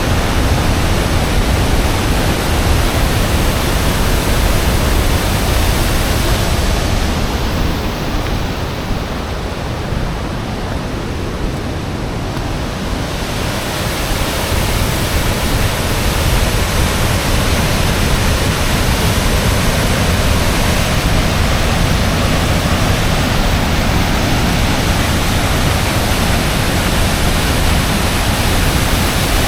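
Loud, steady noise of a waterfall, which turns duller and a little softer for a few seconds about a third of the way in.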